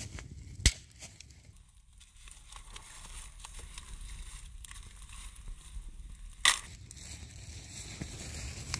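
Birch-wood campfire crackling, with many small snaps and two sharper pops, one about a second in and another later on.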